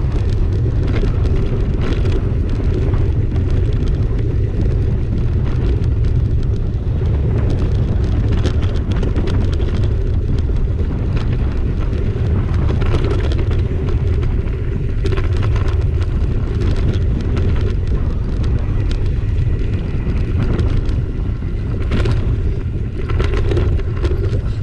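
Mountain bike riding along a dry dirt singletrack: steady wind buffeting on the microphone over the tyres' rolling noise on the dirt, with frequent short rattles and knocks from the bike on rough ground.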